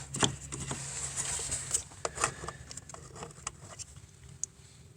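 Scattered light clicks and knocks from hands and tools handling parts in an engine bay, thinning out toward the end.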